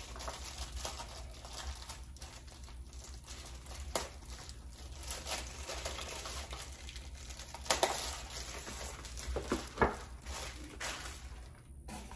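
Clear plastic wrapping crinkling and tearing as it is peeled off a small boxed accessory, with a few louder crackles in the second half.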